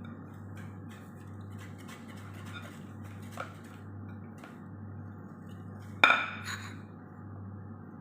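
Utensil stirring pancake batter in a mixing bowl with faint scraping, then a loud ringing clink of the utensil against the bowl about six seconds in and a smaller clink just after. A steady low hum runs underneath.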